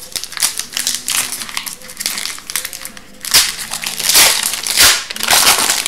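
Foil wrapper of an Upper Deck hockey card pack crinkling and being torn open by hand, with louder rips from about three seconds in.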